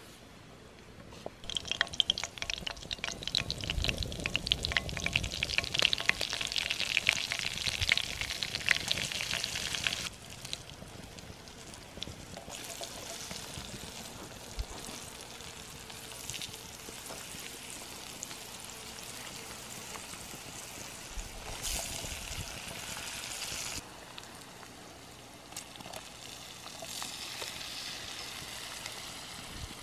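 Vegetables frying in hot oil in a wok, sizzling and crackling. The sizzle starts suddenly about a second and a half in, as sliced onions go into the oil, and is loudest for the first ten seconds before settling to a quieter, steady sizzle.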